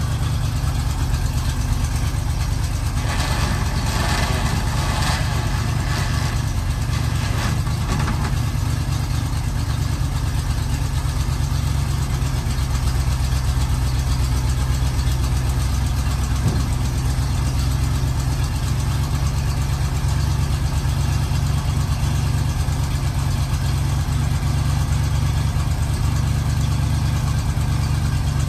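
Gas V8 engine of a 1978 International Loadstar 1700 truck idling steadily, with a stretch of lighter clatter a few seconds in.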